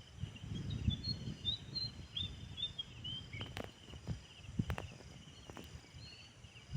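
Outdoor ambience: rustling and handling noise, with a few short bird chirps in the first few seconds and a steady insect hum, then several sharp knocks about halfway through.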